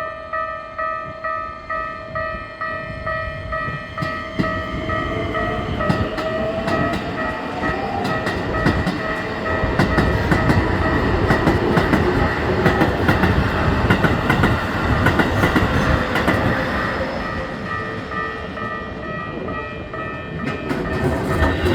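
Level-crossing warning bell ringing at about two beats a second as a Keikyu train passes, its wheels clattering over the rail joints with a rising whine as it comes through. The train noise eases and then swells again near the end.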